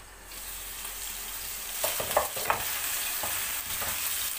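Ground meat frying in hot oil in a non-stick pan, sizzling steadily, with a wooden spatula scraping and knocking against the pan as the meat is stirred from about two seconds in.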